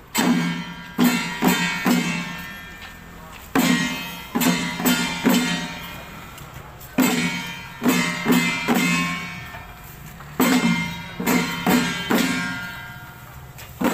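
Temple-procession percussion, gongs and cymbals struck in a repeating pattern. A loud stroke is followed by three quicker ones, and the ringing dies away before the next round, about every three and a half seconds.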